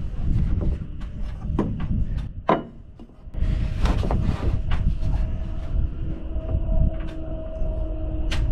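Wind buffeting the microphone in a low rumble that drops away briefly about two and a half seconds in, with a few light knocks and clicks as a 2x6 board and a speed square are handled against a wooden roof truss.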